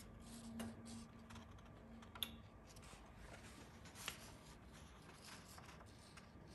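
Three faint clicks as the thermostat knob of an electric crepe maker is turned clockwise, over near silence.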